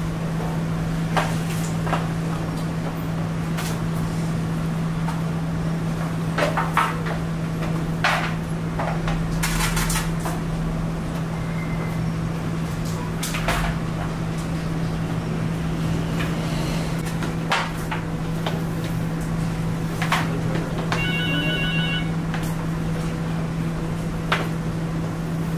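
Boiled lamb feet and bones knocking and clattering against a large steel bowl as they are handled, in scattered sharp knocks over a steady low hum.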